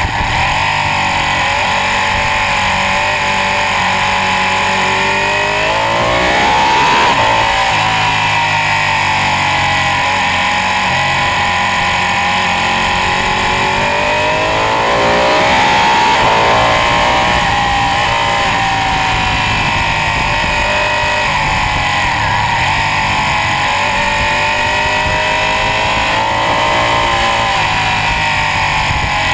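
Ducati 899 Panigale's Superquadro V-twin engine at speed on track, heard from the bike itself: the revs fall and climb repeatedly through gear changes and corners, rising hard and loudest about seven seconds in and again around sixteen seconds, over a steady rush of wind noise.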